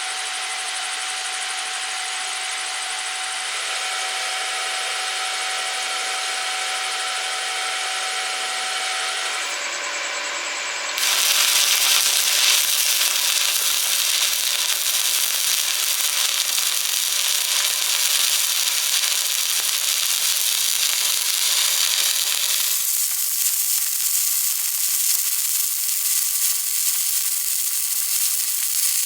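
Stick welding arc crackling and hissing steadily, with sudden jumps in level and tone where the footage cuts, louder from about a third of the way in.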